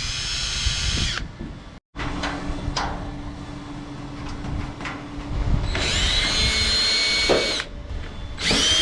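A power drill driving screws in several short runs, each a steady whine that starts and stops abruptly. A lower, quieter hum with some clicks fills the middle stretch.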